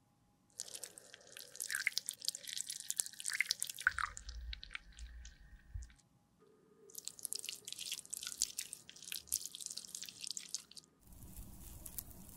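Thick liquid makeup mixture pouring from a small glass beaker into a round metal pan, heard close up as two stretches of wet dripping and dense little crackles. A steady noise takes over near the end.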